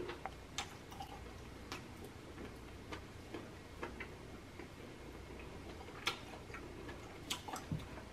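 Faint, scattered mouth clicks of someone chewing a mouthful of chewy curry goat meat.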